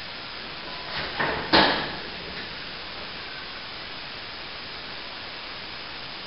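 A small plastering tool scraping over the plaster cornice as a mitre is patched: three short scrapes close together about a second in, the last the loudest, over a steady hiss.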